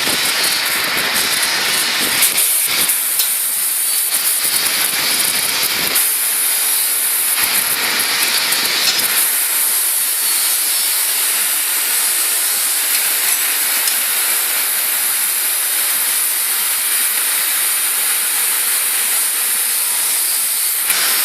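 Oxy-fuel cutting torch on a portable CNC gas cutting machine, its gas jet giving a loud, steady hiss as it cuts. A lower rumble under the hiss fades out about nine seconds in.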